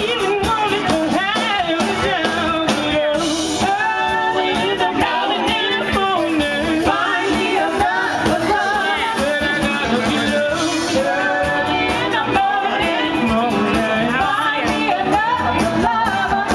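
Music with a singer and instruments, playing continuously at a steady level.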